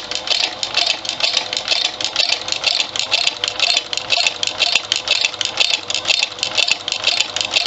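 A circa-1975 Husqvarna Viking 2000 sewing machine running at half speed, sewing a cam-driven pattern stitch through felt. A steady motor hum sits under a fast, even clatter from the needle mechanism.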